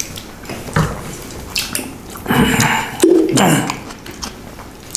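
Close mukbang-style eating sounds: chewing, lip smacks and the squish of rice and pork curry being mixed by hand on banana leaves, as a run of short clicks and smacks. About three seconds in comes a short voice-like sound that falls in pitch.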